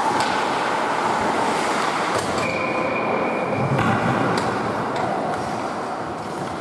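Ice hockey rink noise echoing in an indoor arena: skates scraping on the ice and a few sharp stick or puck clacks, with a faint thin whistle tone for about a second and a half starting about two and a half seconds in.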